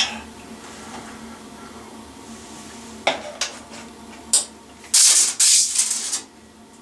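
Screwdriver work on the screw of a plastic ceiling light fitting: a few light clicks, then two short, loud scraping noises near the end.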